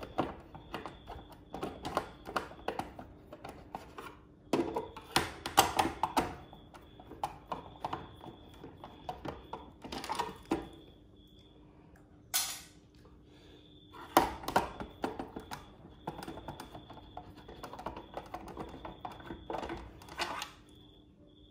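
Screwdriver backing screws out of a garage door opener's plastic cover: irregular small clicks and taps of the driver, screws and plastic housing. Louder clusters come about five and fourteen seconds in.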